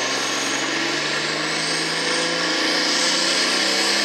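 Hot farm class pulling tractor's turbocharged diesel engine running steadily; its pitch climbs a little about halfway through as the revs come up.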